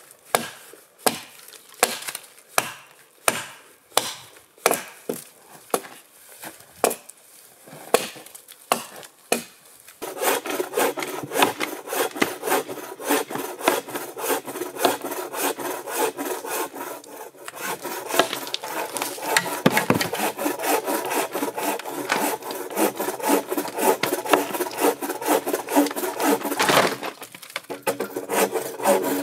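Hand tool working a pine log: about ten sharp, separate strokes on the wood, roughly one every 0.7 seconds. From about a third of the way in, continuous fast hand sawing through the log takes over, louder and denser.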